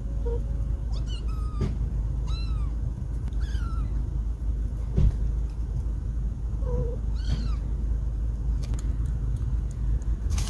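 A cat meows about five times in short, high, arching calls over a steady low rumble, with one sharp knock about halfway through.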